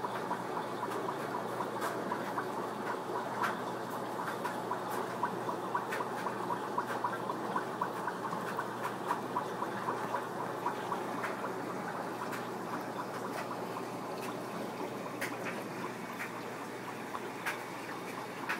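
Aquarium filter bubbling: a steady watery rush with many small pops and ticks, most of them in the first half.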